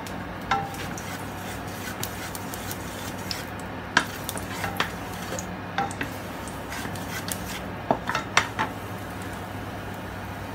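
Wooden spatula rubbing and knocking against a granite-coated wok as oil is spread around the pan, with a few sharp clacks, the loudest about four seconds in and a quick cluster around eight seconds. A steady low hum runs underneath.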